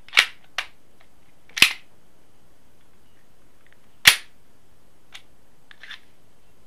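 Sharp metallic clacks from a ČZ 75 pistol's slide and magazine being worked by hand. There are three loud clacks, one near the start, one about a second and a half in and one about four seconds in, with a lighter clack just after the first and soft clicks near the end.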